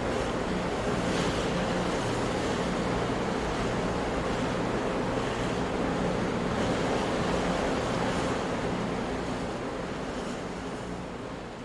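Ocean surf crashing in a continuous rush of water, fading gradually over the last few seconds.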